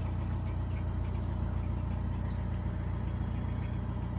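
Narrowboat's diesel engine running steadily at cruising revs, a low, even drone.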